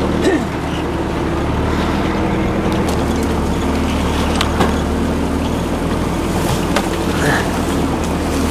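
Austin Champ's engine running steadily as the open 4x4 drives over rough off-road ground, with a few sharp knocks and rattles from the vehicle bouncing on the track.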